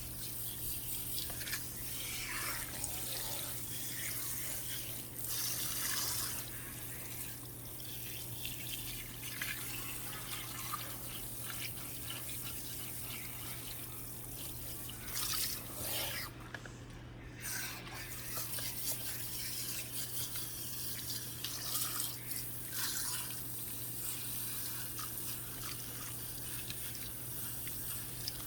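Running water rinsing hair at a salon shampoo bowl, with irregular splashing and dripping; a chemical relaxer is being rinsed out before shampooing. A steady low hum sits under the water.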